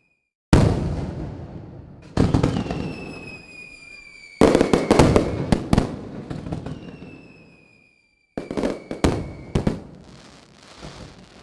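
Fireworks sound effect: sudden bangs about half a second in, at two seconds and a cluster at four and a half seconds, each trailing off in crackle, with two falling whistles. After a cut to dead silence, another group of bangs comes around eight seconds.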